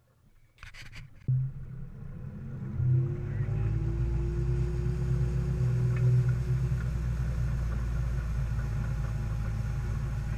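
Malibu Flightcraft towboat's inboard engine throttling up after a few brief clicks: a low rumble starts about a second in, rises in pitch over the next few seconds as the boat accelerates, then settles into a steady loud run at towing speed.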